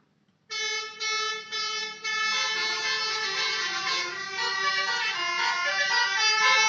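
Basuri multi-tone musical 'telolet' horn on a Wulan Jaya bus. It gives three short blasts about half a second in, then plays a continuous tune of changing notes.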